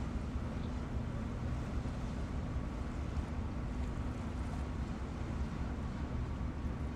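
Boat engine running steadily: a constant low rumble with a steady hum and no change in pace.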